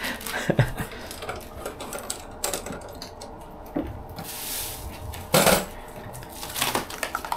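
Tattoo equipment being set out on a work surface: scattered clicks and light clatter of small items being handled, with a short hiss about halfway through and a louder brief noise a second or so later.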